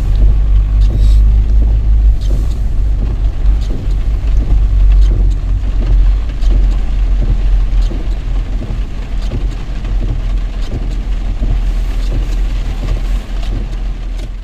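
Car driving on a wet road in heavy rain, heard from inside the cabin: a steady low rumble of engine and tyres, with scattered light taps of rain on the car.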